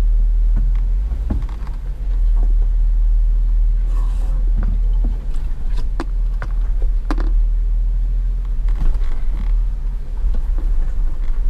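Off-road vehicle crawling over a rocky, muddy trail: a steady low rumble of engine and tyres with scattered sharp knocks and clunks as it goes over the rocks.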